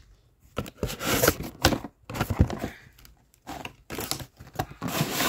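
Irregular rustling, crinkling and knocks of a toy's cardboard and plastic packaging being handled as the toy is worked free of its box.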